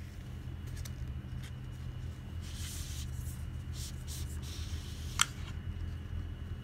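White cardboard watch packaging being handled and opened: papery rustling and sliding of the box in two stretches, a few light clicks, and one sharp tap a little past five seconds, over a steady low hum.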